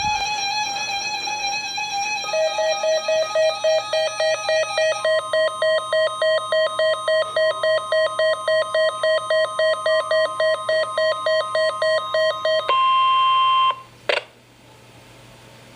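Electronic alert tones. A held tone gives way to rapid beeping at about three to four beeps a second, then one steady tone for about a second that cuts off suddenly. A sharp click follows, then faint hiss.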